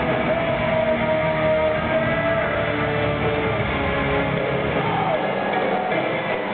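Live rock band playing at full volume, with electric guitar and saxophone over drums, heard from high up in an arena's audience seats. A note is held for the first couple of seconds, and a short falling glide comes about five seconds in.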